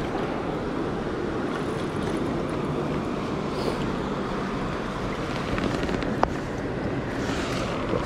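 Steady rushing of river water running over rapids, with one sharp click about six seconds in.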